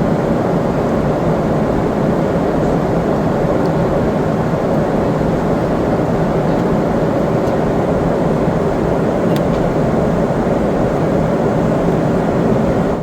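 Boeing 777-300ER's engines and rushing airflow heard from inside the cabin during landing: a loud, steady rumble that cuts off suddenly at the end.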